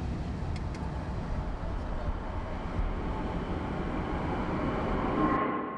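Steady rumble of a moving car on the road, heard from inside the cabin, fading out near the end.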